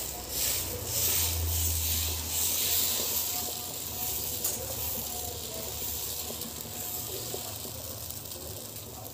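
Batter sizzling and hissing as it is poured onto a hot nonstick pan. The hiss is strongest over the first few seconds and then dies down.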